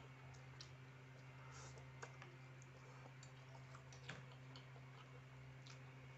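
Faint scattered clicks of a metal fork and spoon against a plastic bowl while someone eats fried instant noodles, about half a dozen light taps over a steady low hum.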